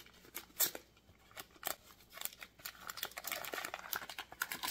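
Paper butter wrapper crinkling and rustling as it is peeled off a stick of butter, in short crackles that grow denser over the last two seconds.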